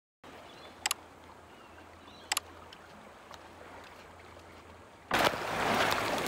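Water lapping at a boat-ramp pontoon, faint and steady, with a couple of sharp clicks. About five seconds in, a much louder rushing noise comes in.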